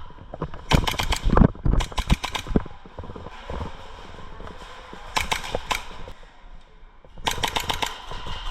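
Airsoft guns firing on full auto: four bursts of rapid snapping shots, about a second each, roughly ten shots a second, the first two close together and the others near the middle and the end.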